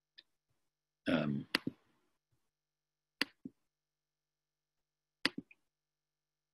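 A few sharp computer mouse clicks, roughly in pairs about two seconds apart, while a file is being opened and shared on screen; a brief murmur of voice comes about a second in.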